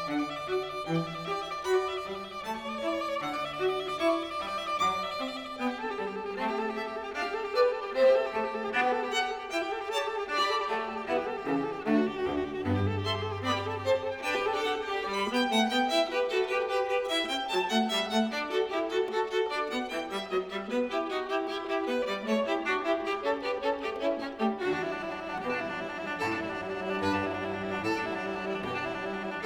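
Music: a bowed-string piece led by violin, with shifting sustained notes.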